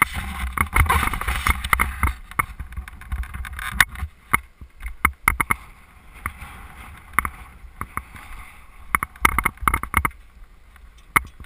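Wind buffeting the microphone of a helmet-mounted GoPro HD, heaviest in the first few seconds. Scattered sharp knocks and clicks run throughout, with a cluster near the end.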